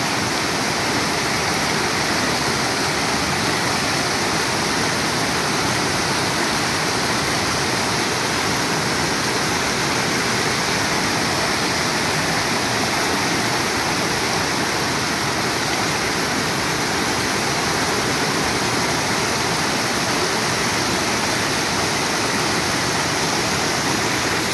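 Fast mountain stream rushing over boulders in white-water rapids: a steady, unbroken rush of water.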